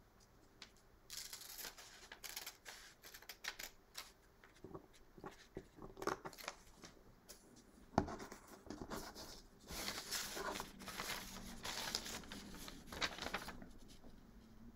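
Scissors snipping through graph paper, with the sheet rustling and crinkling as it is handled and turned: a run of short, quick cuts and rustles, with one sharp click about eight seconds in.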